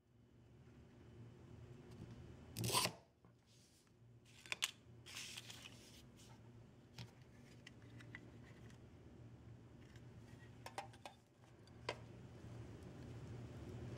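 A single short scratching stroke about three seconds in, a hard tip scoring a small glass mirror along a ruler, then a few light clicks and taps of the glass and tools being handled, over a faint steady low hum.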